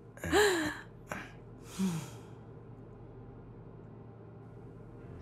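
A woman sighing: a short breathy voiced sound about half a second in, then a falling breathy exhale near two seconds in, with a faint click between them. After that, only quiet room tone.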